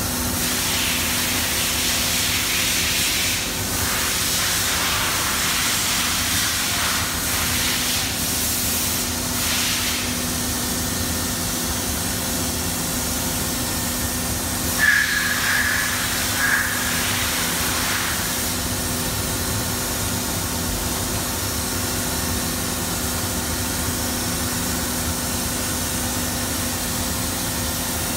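1995 Fadal VMC-6030HT CNC vertical machining center running: a steady hiss over a constant hum. Two brief high-pitched tones sound about a second and a half apart around the middle.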